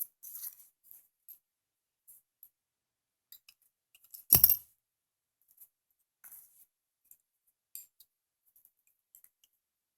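A hammer strikes a pin punch to drive the roll pin of an AR-15 charging handle latch: one sharp, loud metallic knock, doubled, about four seconds in. Around it are faint light clicks and taps of small metal parts being handled.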